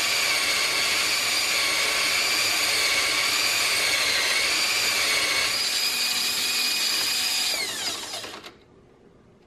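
Cordless drill running at steady speed, spinning a polyurethane skateboard wheel while a steel file scrapes grooves into it, with a steady high whine. About eight seconds in the drill winds down with a falling pitch and stops.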